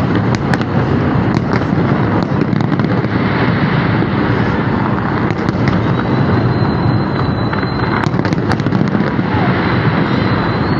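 A New Year fireworks display going off in a continuous barrage. There are many sharp cracks and pops over a dense, unbroken rumble, with a faint high whistle partway through.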